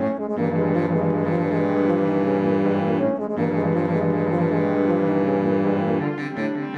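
Instrumental music on low bass instruments: a long held chord, a brief break about three seconds in, then a second long held chord, with shorter repeated notes returning near the end.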